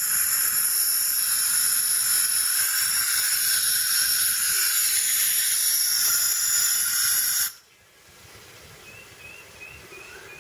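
Loud, steady hiss of pressurised gas at the tire's valve stem where the Fix-A-Flat aerosol can's hose is connected. It cuts off suddenly about seven and a half seconds in.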